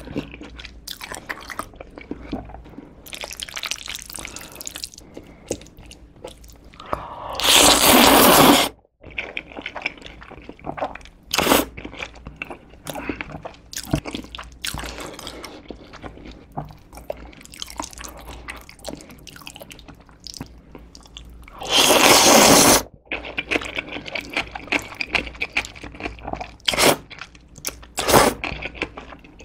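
Close-miked eating of seafood jajangmyeon (black bean noodles): wet chewing and smacking throughout, with two loud noodle slurps of about a second and a half each, around 8 seconds in and again around 22 seconds in.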